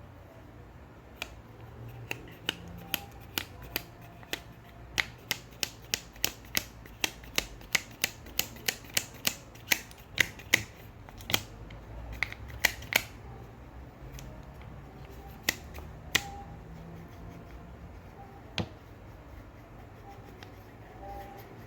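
A run of sharp clicks and snaps from hands working on an electric fan's parts. They come sparsely at first, then two or three a second for several seconds in the middle, then thin out again.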